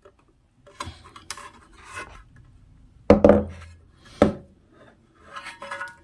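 Handling noise from a 12-inch speaker driver being moved and touched by hand: light scrapes and clicks, with two louder knocks about three and four seconds in.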